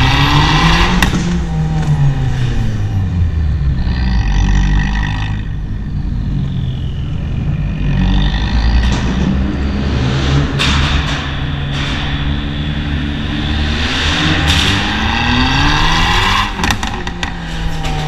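Abarth 595 Turismo's tuned turbocharged 1.4-litre four-cylinder through an Akrapovic exhaust, accelerating hard through the gears inside a tunnel. The revs climb and drop back at each shift, echoing off the tunnel walls, with bursts of exhaust pops and crackles off the throttle around the middle and near the end.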